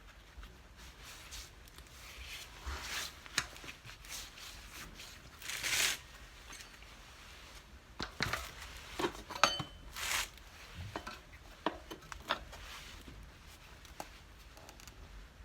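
Hand work on a handcart wheel during a tyre change: irregular clicks, light metallic clinks and scrapes of tools and rubber, with short scraping rushes about three, six and ten seconds in.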